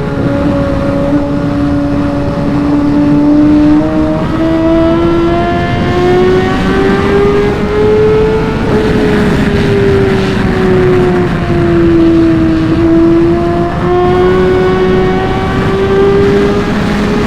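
Inline-four superbike engine running at high revs under steady throttle. Its pitch climbs slowly for the first several seconds, sags through the middle, then climbs again near the end, over constant wind rush and road noise.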